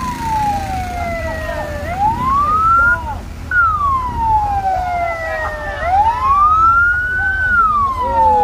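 Ambulance siren wailing, its pitch sweeping slowly up and down about every three seconds, over the low rumble of vehicle engines.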